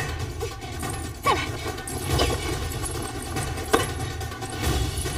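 Action-film sound effects: four sharp hits, one with a falling swish about a second in, over a steady low rumble.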